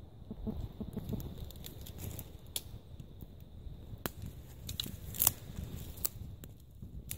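Wood fire of sticks burning in a steel hobo stove, crackling with irregular sharp pops; the loudest pop comes a little past five seconds in.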